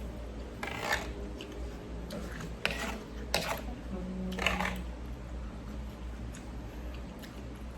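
Eating utensils knocking against a bowl of noodle soup: several short clinks spread over the first few seconds, over a steady low hum.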